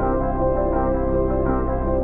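Background music: a slow ambient track of sustained, held chords.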